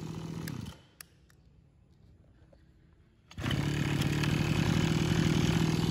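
Small two-stroke engine of a Mitsubishi brush cutter running at high revs. It cuts out abruptly under a second in, leaving near quiet with a single click, and about three and a half seconds in it is running again at the same speed.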